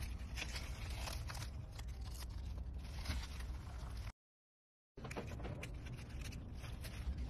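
Leaves rustling and crinkling as hands search leafy greens and pick a caterpillar off, with scattered short rustles over a steady low outdoor rumble. The sound cuts out completely for under a second about four seconds in.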